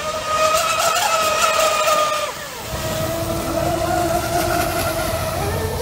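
High-pitched steady whine of a radio-controlled electric speedboat running fast across the water. About two seconds in, the pitch drops and a lower steady whine takes over, with a rougher rumble underneath.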